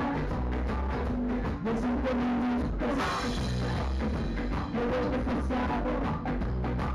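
Live rock band playing, a drum kit keeping a steady beat under electric bass and electric guitar.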